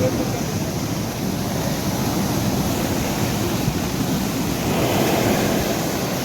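Steady rushing of water where a waterfall stream meets the sea surf, with wind blowing on the microphone; the rush swells slightly near the end.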